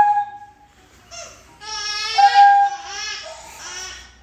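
A baby crying in high-pitched, wavering wails: a brief cry about a second in, a longer wail in the middle, and a softer one near the end.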